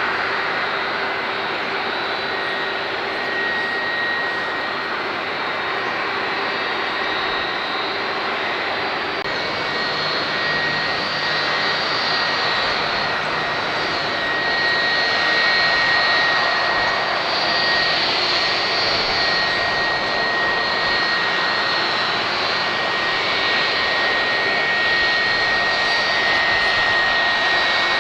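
Jet engines of a widebody airliner running: a steady rush with a high whine, growing a little louder about halfway through.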